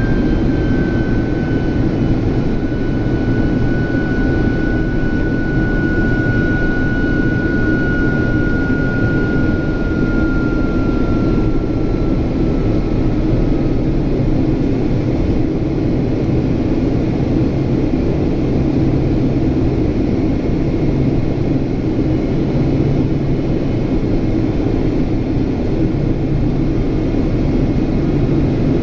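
Boeing 767's General Electric CF6 turbofan engines running in flight: a steady roar with a high whine that slowly falls in pitch and fades out about halfway, while a low hum comes in.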